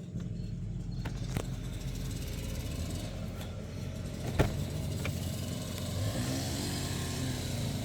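2004 Jaguar XJR's supercharged 4.2-litre V8 idling roughly, a few sharp clanks cutting through, the loudest about four and a half seconds in. The owner takes the clanks for the supercharger, rattled by an idle that seems to sit below its proper speed.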